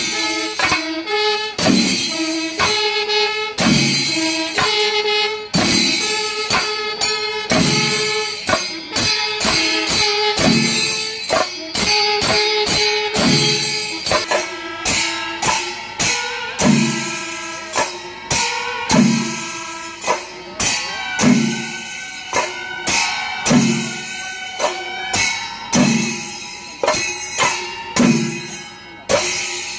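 Pandimelam temple ensemble playing: chenda drums beat under the bright jingle of ilathalam cymbals, while kuzhal and kombu wind instruments hold sustained notes. In the second half a deep drum stroke falls about every two seconds.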